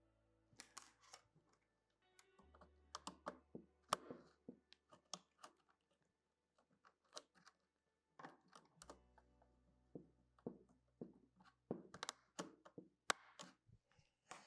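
Irregular small clicks and taps of hands working wires and screw terminals on an alarm panel and communicator board, over quiet background music with low held chords that change twice.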